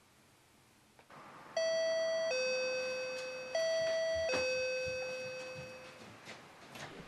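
Electronic two-tone doorbell chime of an apartment intercom: a higher note dropping to a lower one, rung twice in quick succession, the second ding-dong fading out.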